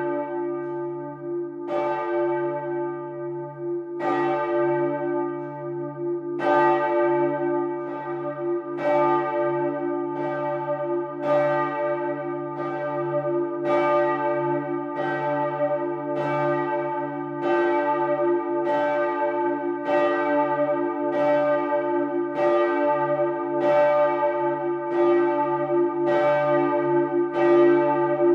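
Bronze church bells of Bremen's St. Petri Cathedral swinging and ringing, each stroke leaving a long ring over a steady low hum. The strokes come about every two seconds at first, then faster, a little over a second apart, from about six seconds in.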